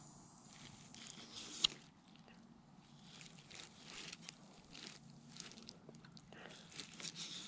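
Knife cutting raw boneless chicken breast into small pieces: faint, irregular scrapes and crackles, with one sharper click about a second and a half in.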